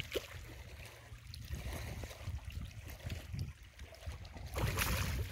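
Hooked tilapia splashing and sloshing at the surface as it is drawn into the shallows at the bank, over a steady low rumble. The splashing grows louder near the end.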